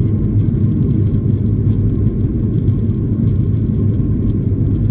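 Cabin noise of a Boeing 737-800 on its takeoff roll with its CFM56-7B engines at full takeoff power: a loud, steady low rumble of engines and runway, with a faint steady tone above it.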